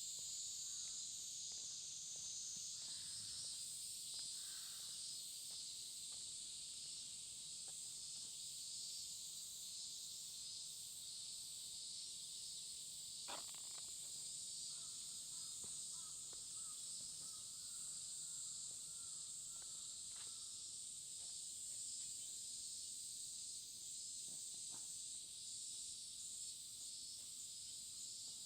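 Steady, high-pitched chorus of summer insects, with faint scattered footsteps.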